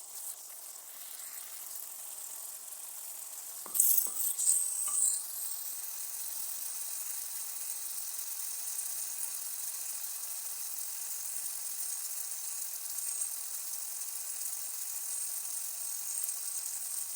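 Tomato sauce with onions and garlic sizzling in a pot, a steady high hiss as it cooks. About four seconds in, a few brief clatters, likely a utensil against the pot.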